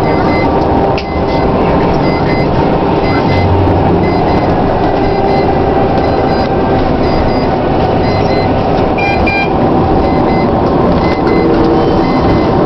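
Steady road and engine noise heard from inside a car driving on a highway, with faint short high-pitched tones recurring.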